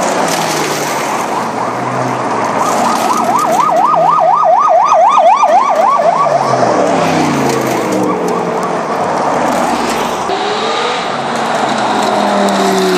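A siren warbles rapidly, rising and falling about four times a second, for about four seconds, over car engines driving past. Near the end a car's engine note rises as it approaches.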